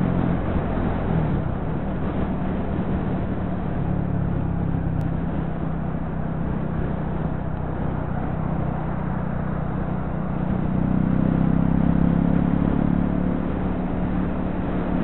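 Engine and road noise of a moving vehicle, a steady drone that grows louder and a little higher in pitch about eleven seconds in as it picks up speed.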